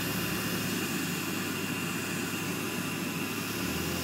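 Van driving slowly over snow while towing a sled: steady engine and tyre rumble with a low hum.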